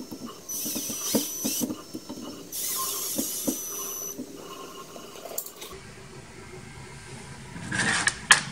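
Cordless drill/driver running in two short whining bursts, each about a second long, as it drives small M3 bolts into a stepper motor's mounting bracket. Light clicks of metal parts come between the bursts, and there is a short clatter of handling near the end.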